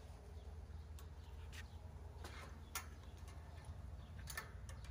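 Faint, scattered sharp clicks and taps at irregular moments, a pair close together near the end, over a steady low rumble.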